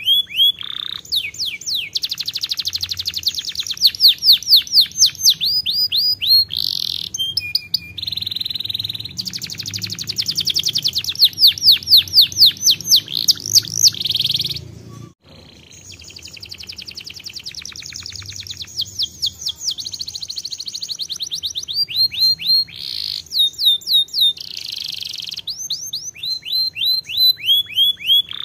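Domestic canary singing a long, high-pitched song of fast trills: runs of rapidly repeated falling notes strung into phrases, with a brief break about halfway through.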